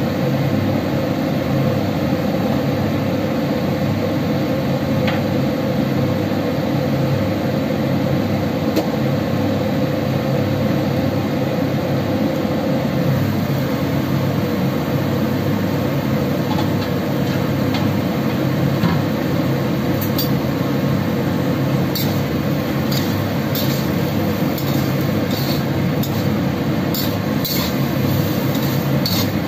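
Steady hiss and hum of a stir-fry cooking in a wok on the stove. In the last several seconds the stirring utensil scrapes and clinks against the wok in quick strokes.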